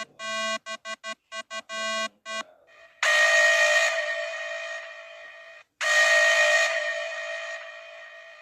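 Emergency alert alarm tone: a run of quick electronic beeps, then about three seconds in a loud, buzzy sustained tone that fades over a couple of seconds and cuts off, repeated once.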